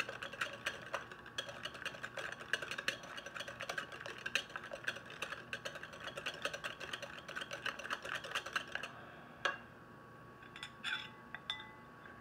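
Wire whisk beating garlic mayonnaise in a glass bowl by hand: a fast, even run of clicks as the whisk strikes the glass. The beating stops about nine seconds in, leaving a few light clinks of the whisk against the bowl.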